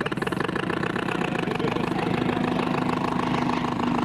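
Small model engine running with a rapid, even beat, likely an RC model boat's motor; a steady hum joins in about two seconds in.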